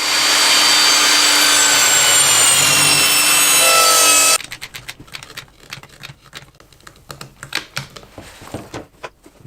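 A power cutting tool runs loudly against a safety shoe, its whine slowly falling in pitch under load, then cuts off suddenly about four and a half seconds in. Faint knocks and handling sounds follow.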